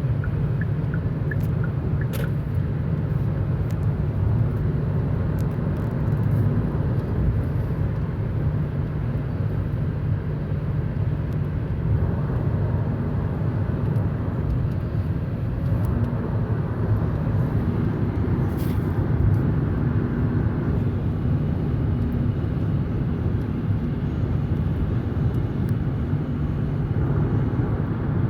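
Steady road and engine noise heard inside a car cabin at highway speed, an even rumble with a few faint clicks about two seconds in.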